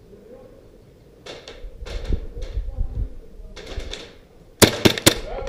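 Airsoft gun firing three quick sharp shots, about four a second, near the end, after a few seconds of scuffing and rustling movement sounds.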